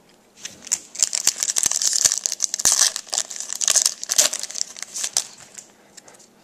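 Foil wrapper of a hockey card pack being torn open and crinkled by hand: a dense, crisp crackling from about half a second in until about five seconds in.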